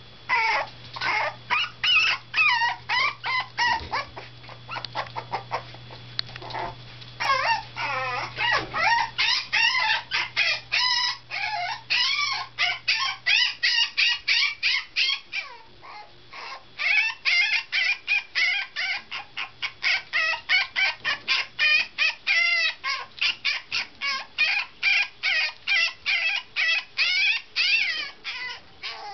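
Teacup toy poodle puppy yapping and yelping over and over, about three high-pitched calls a second with a short pause partway through: protest barking to be let out.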